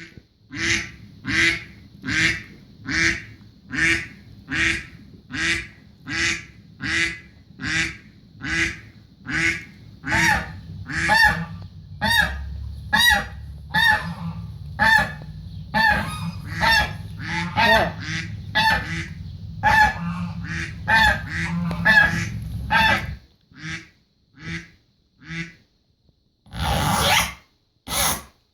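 Recorded goose honking played as a sound effect: a long run of repeated honks, about two a second, growing denser midway, then a few scattered honks before stopping.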